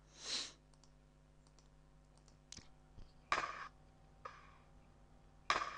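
Gunfire sound effect played back through the computer: a sudden bang with a short ringing tail about three seconds in and again near the end, after a soft whoosh just after the start. A few faint clicks fall between them.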